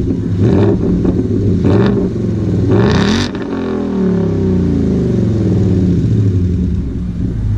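Car engine with a muffler delete being revved: the revs climb to a peak about three seconds in, then fall slowly back. There are several sharp exhaust pops on the way up.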